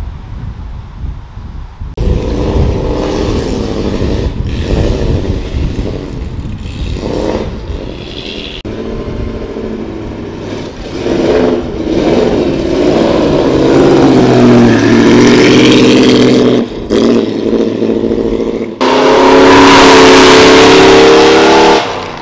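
A loud car engine revving and accelerating hard, its pitch climbing through the gears with short breaks at the shifts, loudest near the end.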